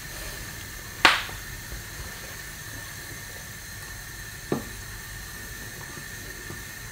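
Pan of stock boiling on the hob, a steady bubbling hiss. A sharp knock comes about a second in, and a fainter one about four and a half seconds in.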